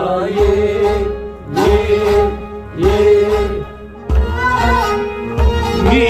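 Harmonium and male voices singing long, held notes that bend at their ends, with low drum beats underneath.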